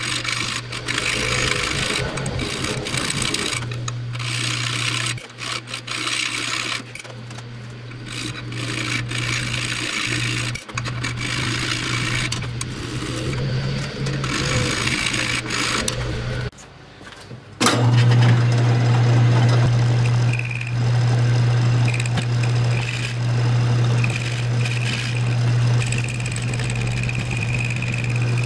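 TIG welding on steel: the welder's arc buzzes steadily with a crackling hiss, stopping and restarting several times as filler rod is fed in. After a short break about two-thirds of the way through, a louder steady hum takes over.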